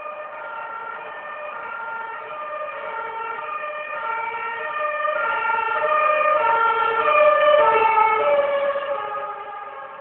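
Two-tone emergency-vehicle siren sounding its alternating high-low call. It grows louder to a peak about three-quarters of the way through, then fades as the vehicle passes.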